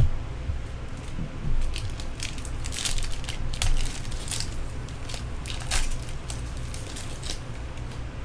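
Foil trading-card pack wrappers crinkling and cards rustling as packs are opened and handled, in a string of short crackles over a steady low hum.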